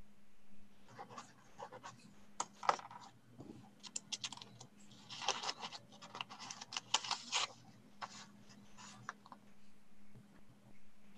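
Scattered small handling noises: quick clicks and scratchy rustles, busiest in the middle, over a faint low steady hum.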